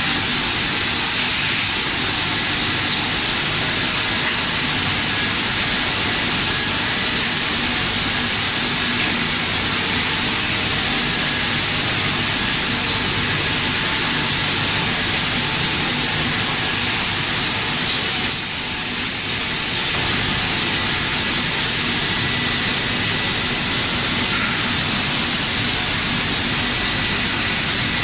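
Steady machinery noise of a running PVC pipe extrusion line, its motors and pumps droning evenly under a constant high whine. A brief falling whine sounds about two-thirds of the way through.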